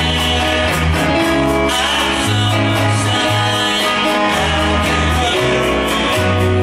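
Live band playing a slow ballad: acoustic guitars with electric guitar and drums over low bass notes that change about every half second.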